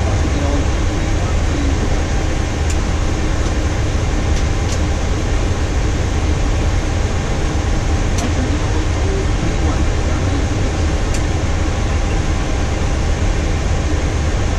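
Steady rumble and hiss on a Boeing 737-800 flight deck on the ground, with the engines at idle and the air conditioning running. A few faint clicks come through now and then.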